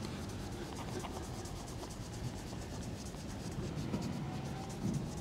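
A polishing cloth rubbing polish by hand over glossy painted steel, in quick back-and-forth strokes.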